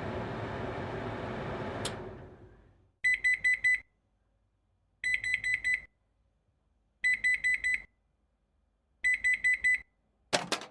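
Microwave oven beeping: four bursts of about five quick high-pitched beeps, repeating every two seconds, following a fading rush of noise in the first couple of seconds.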